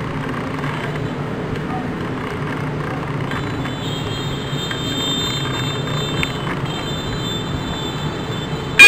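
Steady low hum with background noise, joined after about three seconds by faint steady high tones. At the very end an alarm horn sounds suddenly and very loudly, with several tones sliding in pitch.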